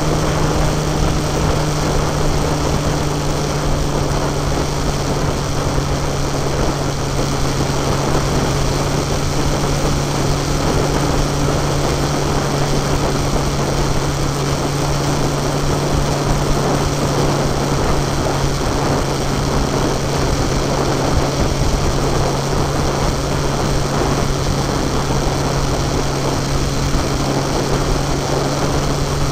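Onboard vehicle engine running at a steady cruise, a constant low hum that holds one pitch, under heavy wind and road noise.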